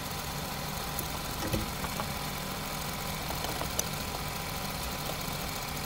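Seat Ibiza 1.2 TSI four-cylinder petrol engine idling steadily, with a few light clicks over it.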